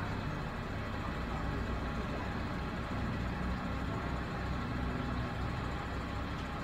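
HOWO 8x4 wrecker truck's 336 hp diesel engine running steadily, driving the hydraulics while the wrecker's boom and underlift are worked from the side controls.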